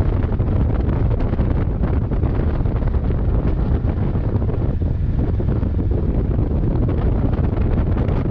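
Steady, loud wind rush on the microphone from riding a motorcycle, the Kawasaki Versys 650, with road and engine noise blended underneath.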